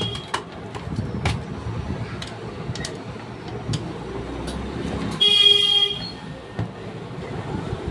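A vehicle horn sounds once, just under a second long, about five seconds in, over a steady low traffic rumble. Scattered light clicks and taps of metal parts and screws being handled as a servo motor control box is taken apart.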